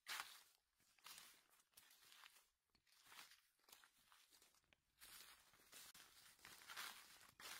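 Faint rustling and crackling of dry oak leaves in several short bursts, as leaf litter is handled and chanterelle mushrooms are cut from it.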